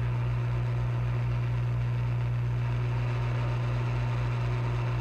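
Hot air rework station blowing steadily to reflow solder under a tiny flex-cable connector: a constant low hum with an even airy hiss.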